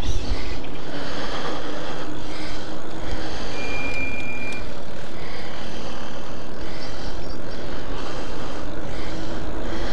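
Custom e-bike riding along a tarmac road: steady rushing wind noise on the microphone mixed with tyre noise. A short, high steady tone sounds about three and a half seconds in and lasts about a second.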